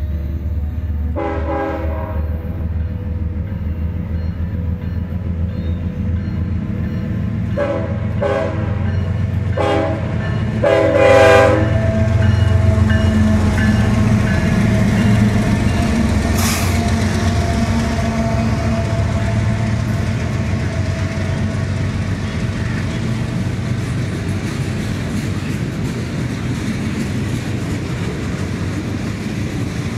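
Freight train led by two GE diesel locomotives, a Ferromex ES44AC and a BNSF ET44C4, sounding its air horn in several blasts as it approaches: one about a second in, a few short ones near eight and ten seconds, and a longer, loudest blast near eleven seconds. The locomotives' diesel engines then rumble past, followed by the steady rolling and clickety-clack of freight cars.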